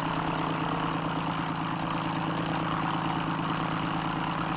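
Aircraft engine running at a steady pitch, a low, even drone that does not rise or fall.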